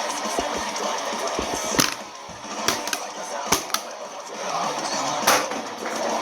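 Loud music with a dense, noisy mix, broken by several sharp cracks, the loudest a little under two seconds in and just after five seconds.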